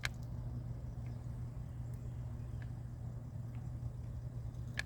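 A steady low hum runs throughout, with a few short clicks from a grease gun being pumped into an excavator grease fitting.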